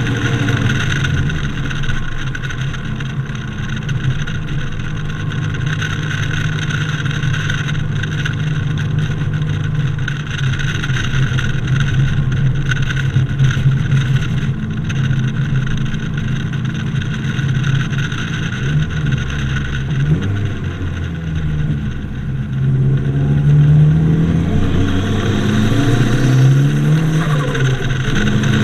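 Toyota MR2 turbo's 3S-GTE four-cylinder, boosted to 13 psi with no blow-off valve, pulling along at a steady engine speed with wind and road noise. In the last third the engine pitch rises and falls several times as it revs up and drops back.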